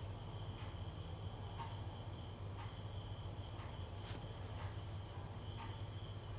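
Masala-coated fish pieces shallow-frying in hot coconut oil in a nonstick pan. The oil gives a steady faint sizzle with small pops about once a second, over the induction cooktop's steady hum and high whine.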